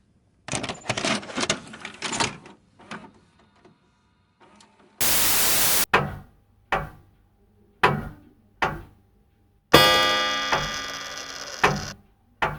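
Staged explosion and crash sound effects: a cluster of heavy crashes and thuds, then single booms about a second apart, ending in a loud crash with a ringing tone that fades away. A short burst of static cuts in about five seconds in.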